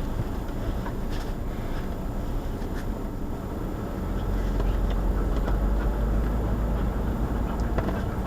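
Road noise of a moving car heard from inside the cabin: a steady low rumble of tyres and engine that grows louder about halfway through.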